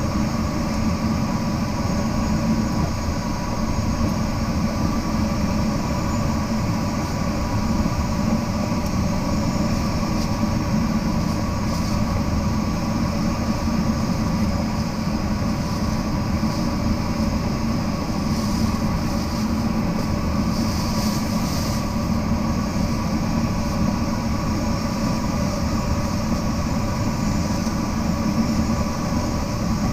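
Steady rushing airflow noise inside a glider's cockpit in flight, with a few steady hums running under it.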